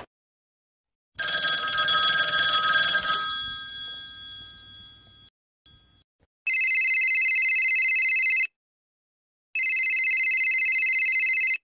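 Telephone bell ringing twice, each ring about two seconds long with a second's pause between. Before it, a separate ringing tone of several pitches sounds and fades out over about four seconds.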